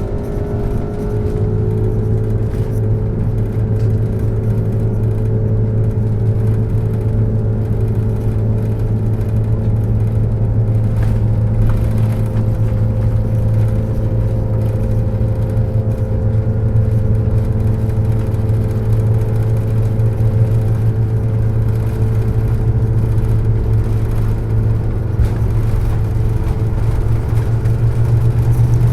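Airbus A330 cabin noise from its jet engines and airflow during departure: a loud, steady drone with a strong low hum and a few faint tones that drift slightly in pitch early on.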